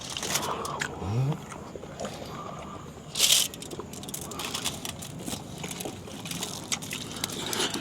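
Eating sounds: chewing and small scattered clicks, with one brief louder crunch or rustle about three seconds in and a short low hum a little after the start.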